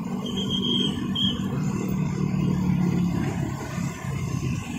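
Road traffic: motor scooters and a car driving past with engines running steadily. A short high-pitched tone sounds twice in the first second and a half.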